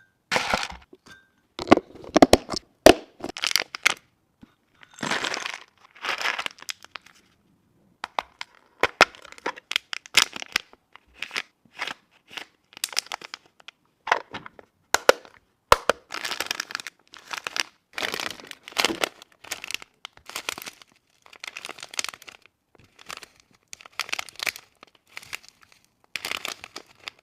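Packaging being handled: short bursts of crinkling and tearing mixed with sharp clicks and taps, with brief pauses between them.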